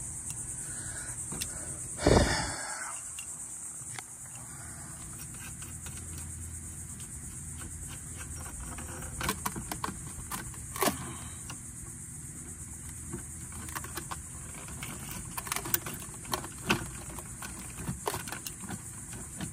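Steady high-pitched insect buzz, crickets, with a thump about two seconds in and scattered light clicks and knocks of hand work on the pump motor's wiring.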